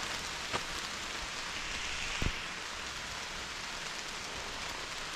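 Heavy rain falling steadily, with a few louder single drops ticking close by.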